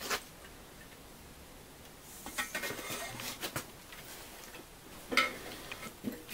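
Small metallic clicks and rattles of a fire-extinguisher valve head, with its pressure gauge and hose, being handled and fitted onto the stainless steel canister that serves as a homemade engine pre-oiler. A sharper metal clink comes about five seconds in.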